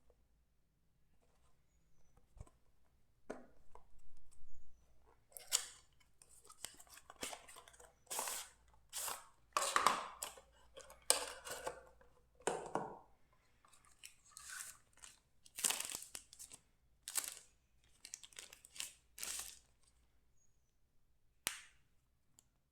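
Packaging of a fitness band's retail box being opened by hand: a run of short tearing and crinkling strokes, irregular and about half a second each, ending with one sharp click.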